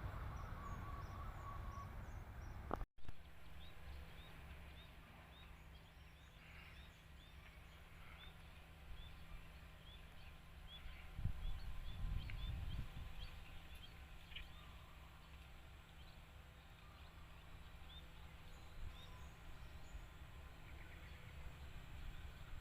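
Small birds chirping in many short, quick repeated calls over a faint low rumble of background noise. The sound cuts out briefly about three seconds in.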